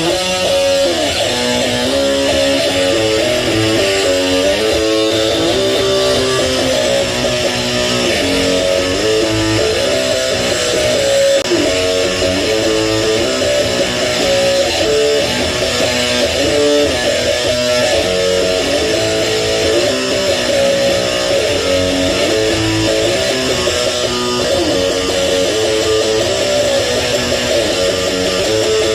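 Electric guitar played with a pick: a run of single notes stepping up and down in a repeating pattern.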